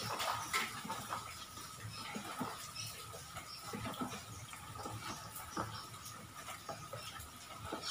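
Spoon stirring a thin tapioca-starch-and-water batter in a plastic bowl: irregular soft clicks, taps and wet scrapes against the bowl.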